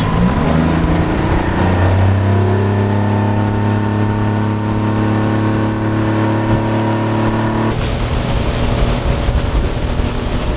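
Mercury tiller outboard on an aluminum jon boat, throttled up and under way: its pitch rises over the first couple of seconds, then holds steady at cruising speed. About three-quarters of the way through, the engine note changes abruptly and a rushing sound comes to the fore.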